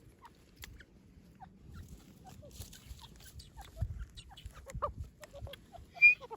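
Fowl giving short, soft clucks and chirps scattered through, with one louder, higher call near the end.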